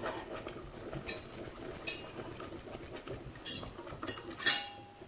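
A metal utensil stirring a thick cheese sauce in a stainless steel pot, scraping softly with four or five sharp clinks against the pot.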